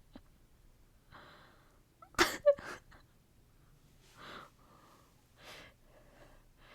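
A sudden, loud burst of breath through the nose and mouth about two seconds in, with a second short burst right behind it. A few soft breaths follow.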